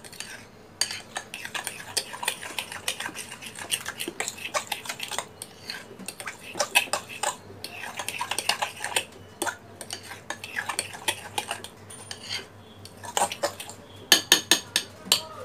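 A spoon stirring thick semolina and yogurt batter in a bowl, with irregular clinks and scrapes against the bowl's side and a quick run of taps near the end.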